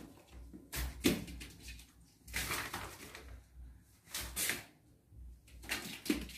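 Rustling and scuffling as two baby monkeys run, scramble and climb over a plastic-sheet-covered floor, in four short bursts.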